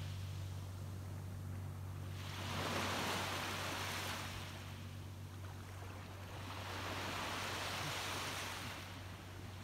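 Small waves washing up on a sandy shore, two swells of surf about two seconds in and again about six seconds in, over a steady low hum.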